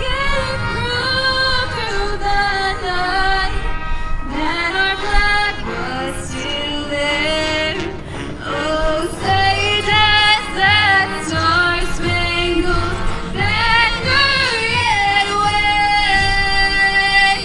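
A pop song with a female lead vocal plays, and a steady low beat comes in about halfway through.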